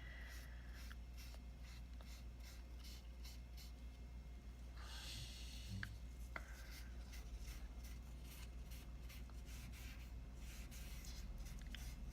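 Faint, repeated rubbing strokes of a cleaning wipe on the lid of a removed Xeon CPU, wiping off old thermal paste. A denser scrubbing patch comes about five seconds in, and a couple of light clicks follow, over a steady low hum.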